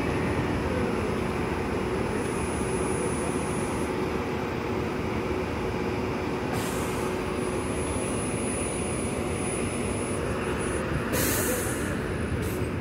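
Eletra battery-electric city buses moving off in convoy: a steady traffic din with a faint steady whine, and two short hisses of air from the buses' air brakes, about six and eleven seconds in.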